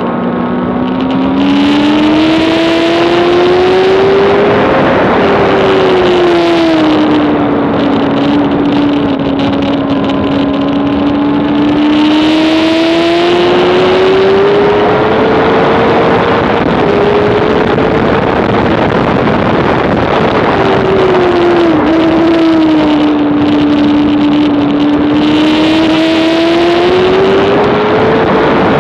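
Honda CBR600RR inline-four race engine at high revs, its pitch climbing slowly under acceleration, falling back twice and climbing again near the end. A high hiss comes and goes three times.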